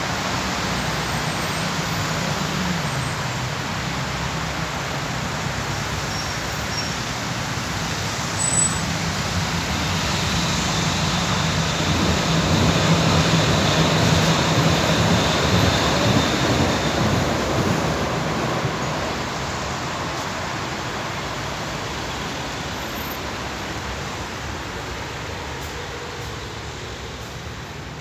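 Road traffic noise: a steady rush of passing vehicles with a low engine hum that swells to its loudest about halfway through, then fades gradually.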